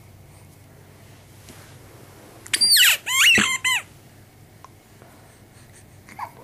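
Rubber squeaky toy squeezed three times in quick succession, giving short high-pitched squeaks that glide up and down in pitch.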